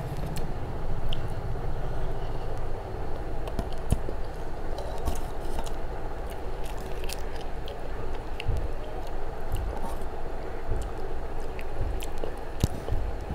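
Close-miked chewing of rice and vegetables, with scattered short clicks and squishes from fingers mixing rice on a plate and picking from a steel bowl.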